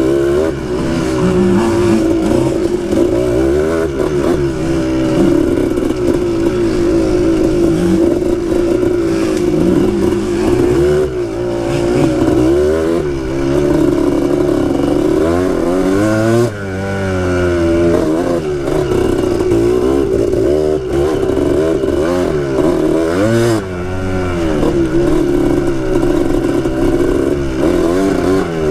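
Two-stroke dirt bike engine revving up and down as the bike is ridden along tight trail, the pitch rising and falling constantly. The throttle is chopped sharply about midway and again near two-thirds of the way through.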